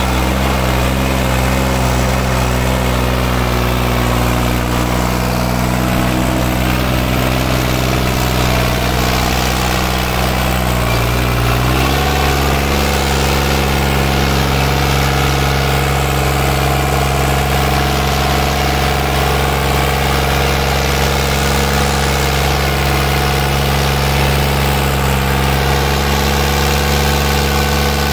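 New Holland 3630 Turbo Super tractor's three-cylinder diesel engine running hard under heavy load, with its rear wheels digging into loose soil against a buried rear implement. The engine note holds steady, shifts slightly a little before halfway through, then holds again.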